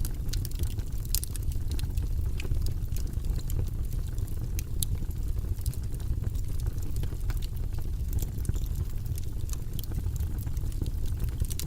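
Fireplace fire crackling: scattered sharp pops and snaps over a steady low rumble.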